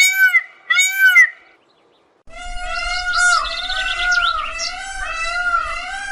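Indian peafowl calling: a rapid series of loud, repeated honking calls, about one every half second, stops about 1.5 s in. After a short silence, several birds call over one another in wavering tones with chirps, over a low rumble.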